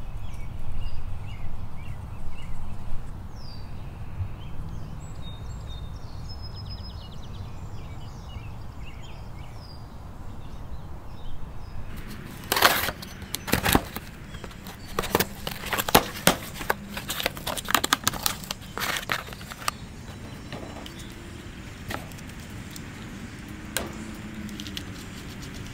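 A folding knife slicing the packing tape on a cardboard box, then the box being opened and handled. This comes as a run of sharp scrapes and clicks that starts about halfway through, thins out after a few seconds, and ends with a few knocks. Before that there is only a low steady rumble, with a few faint bird chirps.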